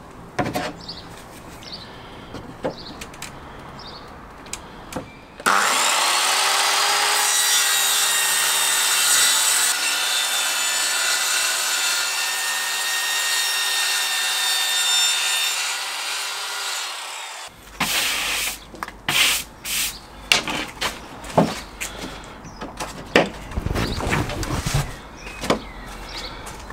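Corded circular saw cutting through 9 mm plywood for about twelve seconds: a loud, steady whine of the blade in the wood that starts and stops abruptly. Before and after the cut come light clicks and knocks of tools being handled on the board.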